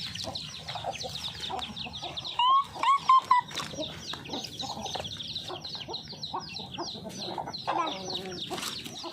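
A flock of free-range village chickens feeding. Hens cluck, and chicks give many short, high, falling peeps that go on almost without a break.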